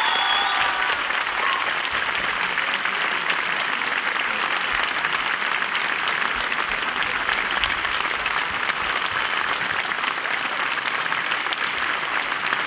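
Audience applauding steadily as the last notes of the song die away in the first second.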